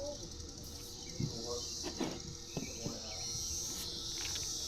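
Cicadas buzzing in a steady, high-pitched drone that swells a little in the second half. Faint distant voices and a few light knocks sit underneath.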